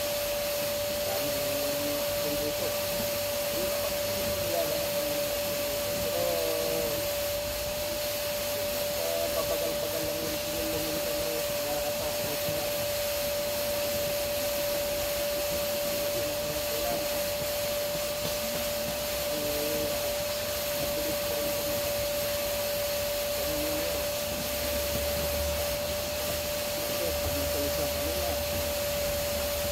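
Vacuum cleaner running steadily, its motor holding one unchanging whine, as a car's interior is vacuumed.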